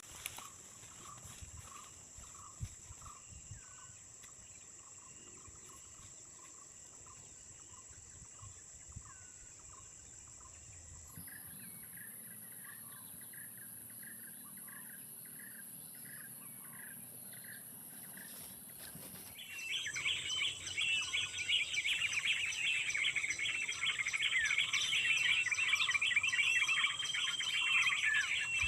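Small songbirds calling with repeated short chirps at a steady pace over a continuous high-pitched insect drone. About two-thirds of the way in, a louder, busy twittering of many quick notes takes over.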